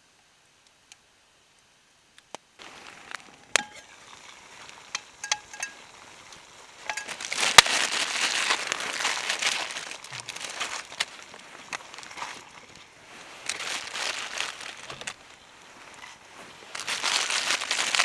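Things being handled: spells of crinkling and rustling with scattered sharp clicks and clinks, starting after a couple of seconds of near silence.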